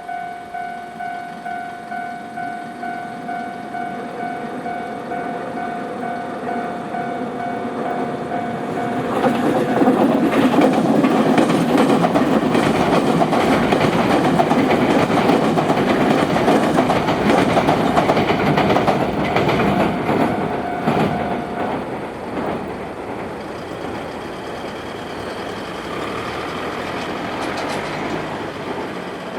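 Japanese level crossing's warning bell ringing in a steady, fast repeating beat as a Nankai Electric Railway train passes over the crossing. The train comes through loudly from about a third of the way in, its wheels clattering over the rail joints; the bell stops shortly before two-thirds of the way through, leaving the train's fading rumble.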